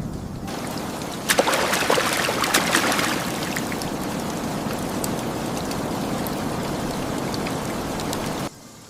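Heavy rain with running water, a steady dense patter. Between about one and three seconds in it gets louder, with many sharp drops. It cuts off abruptly near the end.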